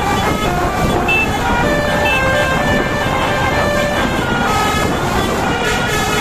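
Indonesian bus basuri (telolet) horn playing a long run of quick melodic notes that step up and down in pitch, over steady engine and road noise.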